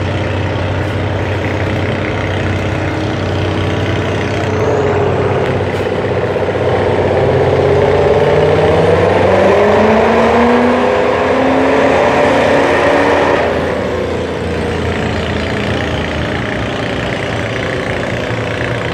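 Truck engine running hard under full load while pulling the weight sled, its revs climbing over several seconds, then backing off about thirteen seconds in as the pull ends.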